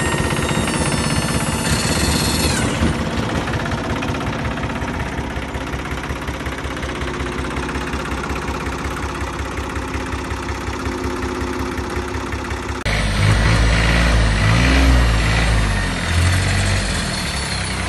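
Katsu mini tractor's engine running with a rapid, even knocking beat while its dump bed tips the load. Partway through, the sound turns abruptly louder and deeper, the pitch rising and falling briefly as the engine works.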